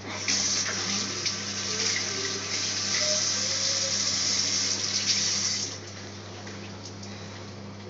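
Water running hard from a bathtub mixer tap, turned on just after the start and shut off suddenly about five and a half seconds in.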